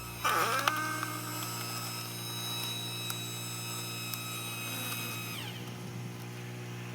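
Gas engine of a hydraulic log splitter running. About a third of a second in it takes on load with a sudden jump in loudness as the lever drives the ram, and a steady whine holds. About five and a half seconds in the whine slides down and fades.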